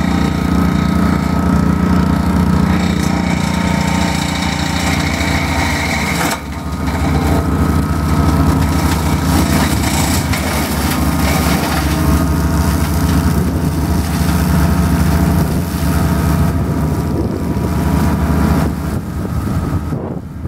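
Compact tractor engine running steadily under load while its front-mounted flail mower spins and cuts through dry reeds and scrub. The sound dips briefly about six seconds in.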